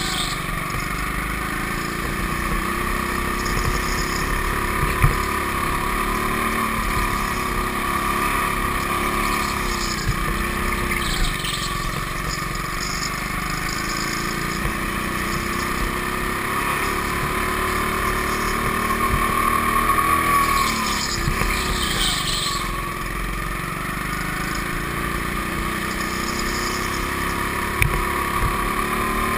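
Go-kart heard from its own seat, its motor droning steadily while the pitch rises and falls with the throttle through the corners. There are two sharp knocks, about five seconds in and near the end.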